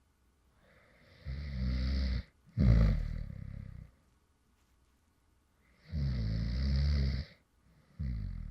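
Light snoring of a man asleep: four low, buzzing snores in two pairs, with a pause of about two seconds between the pairs. The one about two and a half seconds in is the loudest.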